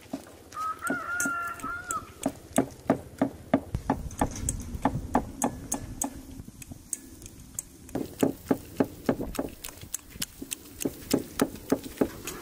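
A run of sharp knocks, about four a second, thinning out briefly midway, with a short pitched call about a second in.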